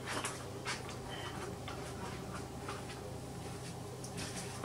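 Footsteps in rubber clogs on a tiled floor: faint, irregular soft taps over a low steady hum.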